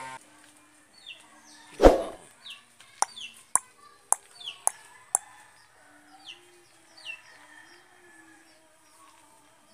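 Short, high bird chirps falling in pitch, repeating at scattered intervals. A single thump comes about two seconds in, and several sharp clicks follow between about three and five seconds in.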